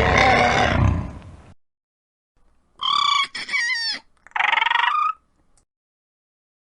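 Dinosaur sound effects: a loud rough roar fades out in the first second and a half, then three short high-pitched screeching calls with wavering, falling pitch come between about three and five seconds in.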